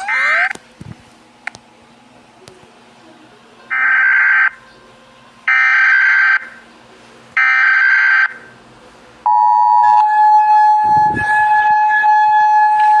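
Emergency Alert System header: three screechy digital data bursts, each about a second long and a second apart, followed about nine seconds in by the steady two-tone EAS attention signal. A short rising sweep sounds at the very start.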